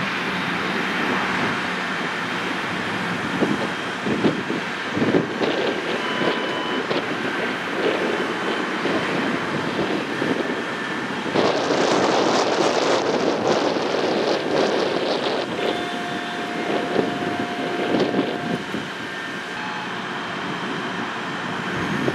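Road traffic passing on a busy street, a steady engine-and-tyre noise that swells now and then. One loud vehicle passes from about eleven to fifteen seconds in.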